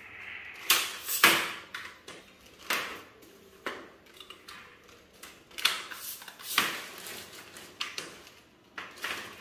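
Tripod legs and their fittings being handled and adjusted: irregular hard clicks and clacks, roughly one every second.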